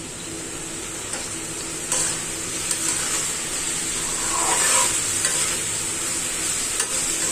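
Sliced pointed gourd and brinjal frying in oil in a metal karahi, sizzling steadily while a metal spatula stirs and scrapes them, as the vegetables are fried down with spices. The sizzle gets louder about two seconds in, with a few sharp taps of the spatula against the pan.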